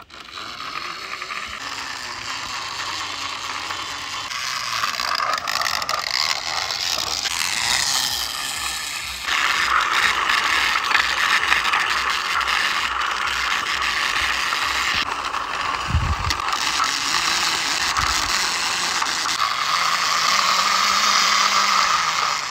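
Plastic toy police car pushed by hand along a concrete wall, its wheels and internal gearing giving a continuous mechanical ratcheting rattle that grows louder about nine seconds in.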